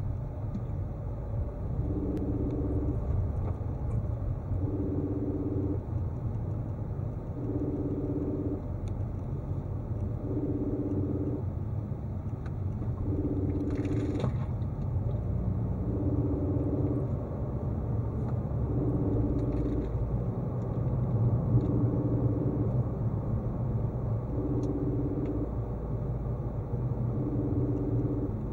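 Car driving, heard from inside the cabin: a steady low rumble of engine and tyres, with a repeating tone about a second long that sounds roughly every three seconds.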